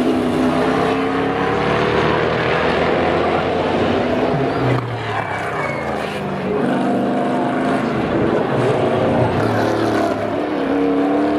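NASCAR Euro Series stock cars' V8 engines running as the cars go past, several engines overlapping with their pitch rising and falling.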